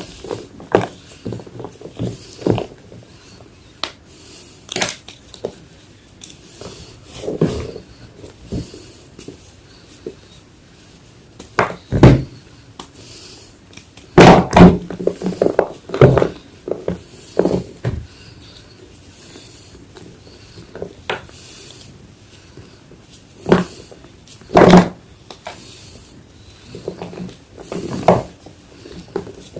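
Reformed gym chalk crunching as it is crushed, in irregular crisp crunches and cracks. The heaviest bursts come a little under halfway and again about four-fifths of the way through.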